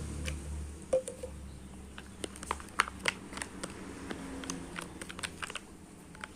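Slime being stirred and mixed after more activator is added: a run of irregular sticky clicks and small pops, busiest in the middle and thinning out near the end, with a brief squeak about a second in.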